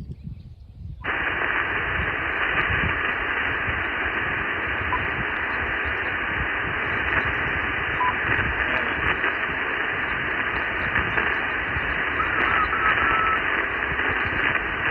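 Amateur radio receiver's single-sideband static hiss on the RS-44 satellite downlink, with no station coming through. It cuts in suddenly about a second in and then runs steadily, over a low rumble.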